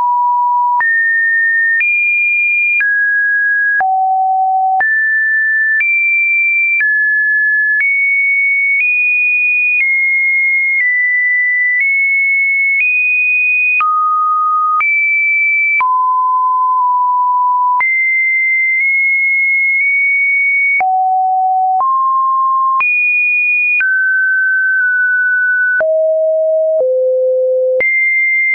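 Computer-generated sine-wave test tones: a string of steady pure beeps, about one per second, each at a new pitch, jumping up and down between low-middle and high. Each change comes with a faint click.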